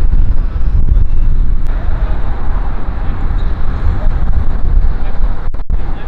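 Strong wind buffeting the microphone: a loud, uneven low rumble of noise.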